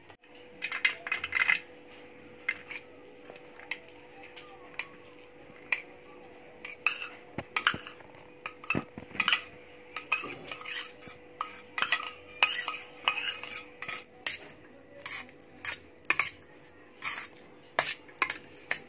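Steel spoon stirring a crumbly paneer and onion filling in a stainless steel bowl, scraping and clinking against the metal at an irregular pace.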